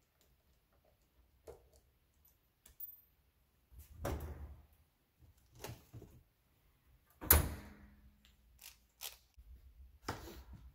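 Metal tools being handled on a steel-topped workbench: a socket lifted out of a toolbox drawer and parts moved and set down, heard as scattered clicks and knocks. About seven seconds in comes one sharp metallic clank that rings briefly.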